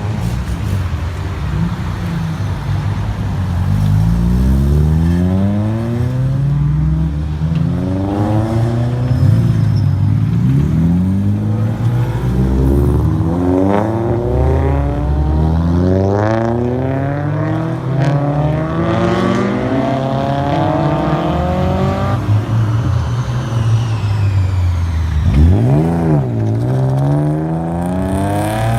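Several Honda S2000 four-cylinder engines accelerating away one after another, each revving up through the gears, their notes overlapping throughout. About 25 seconds in, one engine revs sharply up and drops back.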